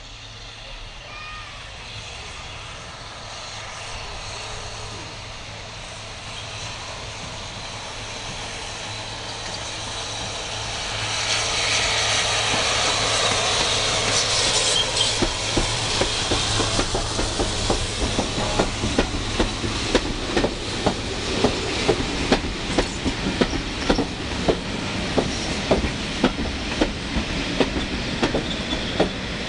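Ex-LSWR M7 class steam tank engine arriving with its coaches and passing close by. A rumble grows louder, then a loud hiss comes as the engine draws level with steam showing above it. The coaches' wheels follow with a regular clickety-clack over the rail joints, about one or two clicks a second.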